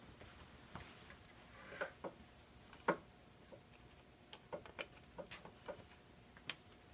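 Scattered small clicks and taps as a power supply's plug and cord are handled and plugged in. The loudest click comes about three seconds in, followed by a run of lighter irregular ticks.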